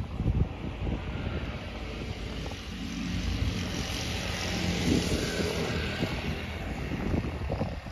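Wind buffeting the microphone, then a road vehicle passing close by: its engine hum and tyre noise swell through the middle and ease off near the end.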